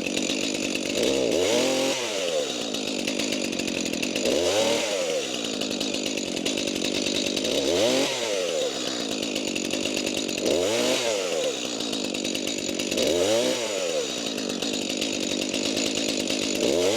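Stihl chainsaw with a freshly sharpened chain cutting cherry wood. The engine revs up and drops back again about every three seconds, six times in a row, with the saw running steadily in between.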